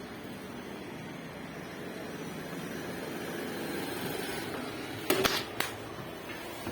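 Kemei 1986 electric hair clipper running with a steady hum while cutting hair, with a few sharp clicks a little over five seconds in.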